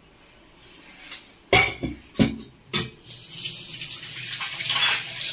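Three sharp knocks, then a steady rush of running water.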